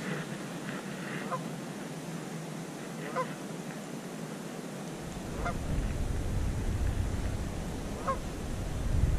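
Geese on the lake honking, single calls every two to three seconds. A low rumble comes in about halfway.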